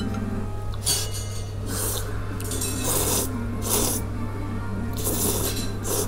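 A person slurping thick mazesoba noodles: several short, rasping slurps, about one a second, over background music.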